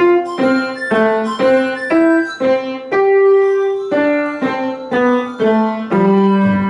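A young child playing a simple melody on the piano, mostly one note at a time at an even pace, with a lower bass note added near the end.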